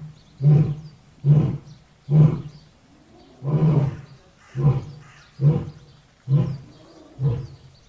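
Lion roaring: a run of eight short, deep grunting roars, roughly one a second, the trailing series of a roaring bout.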